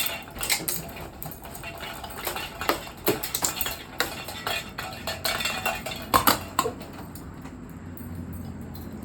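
A running 1994 Hunter Piedmont ceiling fan coming apart: rapid metallic clattering and metal-on-metal scraping that throws sparks, with a few loud clanks about six seconds in. It then settles into a lower, steady hum.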